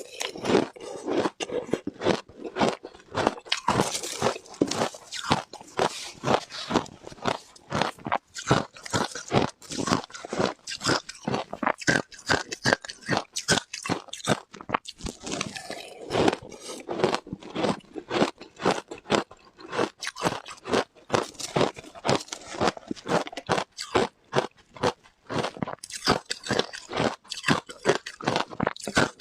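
A person biting and chewing ice, with a rapid, irregular run of crunches and crackles several times a second.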